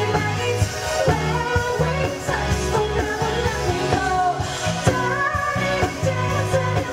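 Pop song performed live: a woman's voice singing lead over loud accompaniment with a pulsing bass.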